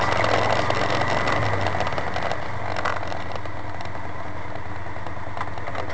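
Side-by-side UTV engine heard from inside the open cab, running at low speed and easing back to a steady idle about two seconds in.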